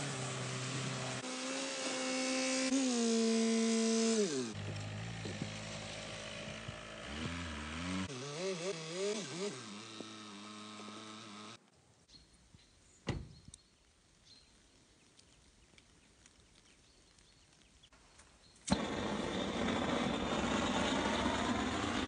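An SUV engine driving across rough ground, its pitch dropping once and then rising and falling as it moves along. A quiet stretch follows with a single sharp knock, then a loud, steady rushing hiss starts abruptly near the end.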